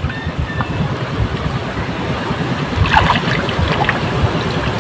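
Wind buffeting the microphone outdoors: a steady, rough rumbling noise, with faint voices about three seconds in.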